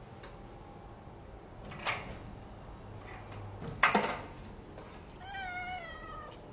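A domestic cat meows once near the end, a slightly wavering call lasting about a second. Before it come two sharp knocks, the second one the loudest sound.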